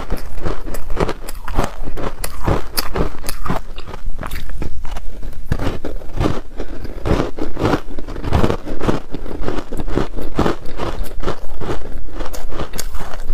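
Teeth biting and chewing a hard frozen ice bar dusted in matcha powder, close to the microphone: a continuous run of crisp, irregular crunches, several a second.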